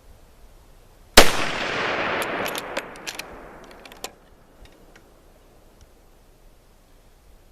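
A single shot from a .350 Legend Mossberg Patriot bolt-action rifle about a second in, followed by a rolling echo that dies away over roughly three seconds, with a few faint clicks in the tail.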